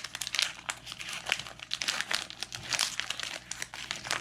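Foil wrapper of a Pokémon booster pack crinkling in the hands, a quick irregular run of sharp crackles, as the opened pack is handled and the cards are taken out.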